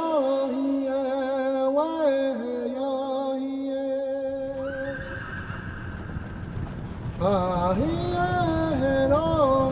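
A voice chanting in long, wavering held notes. About four and a half seconds in it breaks off for a rushing, rumbling noise and a horse whinnying, then the chant resumes near the end.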